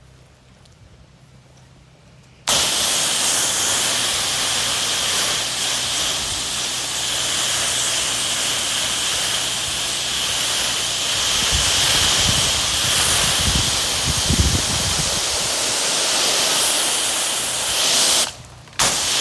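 Pressure washer spraying water from its hose nozzle: a loud, steady hiss that starts about two and a half seconds in, cuts off briefly near the end and starts again. Wind buffets the microphone in low gusts midway.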